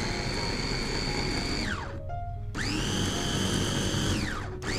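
Electric food chopper's motor pulsed while grinding tofu: a high motor whine runs, winds down with a falling pitch a little under two seconds in, starts again about half a second later, winds down again past four seconds, and starts once more at the very end.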